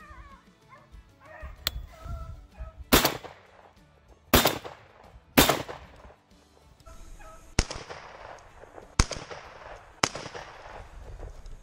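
Shotgun firing at a running rabbit: a string of sharp reports, the three loudest about a second apart a few seconds in, followed by several more cracks. Dogs bark faintly near the start.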